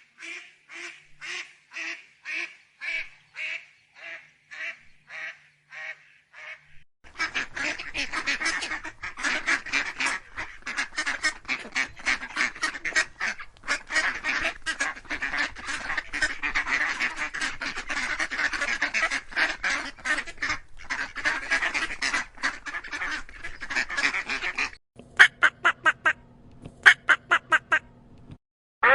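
Ducks quacking. A single duck gives a steady series of about two quacks a second that fade away; then, about seven seconds in, many ducks quack at once in a dense, overlapping chorus, and near the end a few loud quacks come in quick runs.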